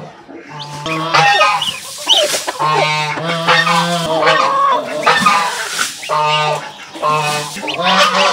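Domestic geese honking loudly over and over, in a flock.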